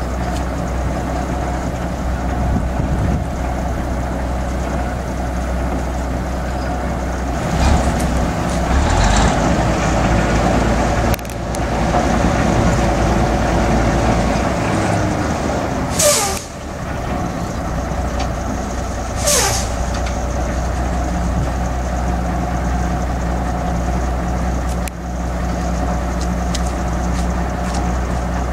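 Old crawler crane's engine running steadily as it lowers a narrowboat, getting louder for a few seconds about eight seconds in. Two short, sharp hisses of air come about three seconds apart past the middle.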